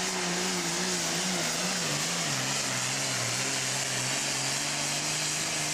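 Turbocharged diesel engine of a John Deere super farm pulling tractor running at full throttle while pulling a weight-transfer sled. Its note sags lower about two seconds in as the load builds and picks up again near the end.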